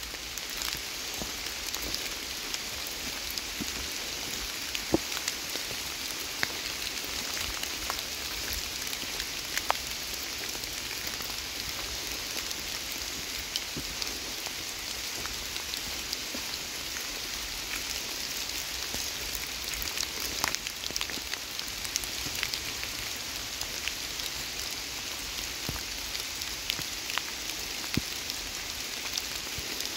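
Steady rain falling, an even hiss with scattered sharp ticks of single drops striking close by.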